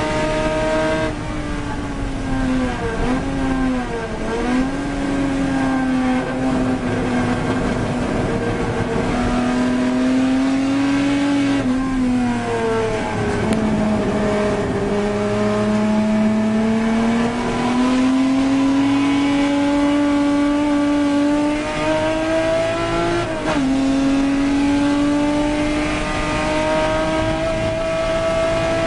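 Mk3 Ford Capri racing engine heard from inside the cockpit, at racing speed. The engine note falls and wavers over the first few seconds and falls again around 12 seconds in as the car brakes and changes down for a slow corner. It then climbs steadily under acceleration, with a sharp drop at a gear change about 23 seconds in, and climbs again.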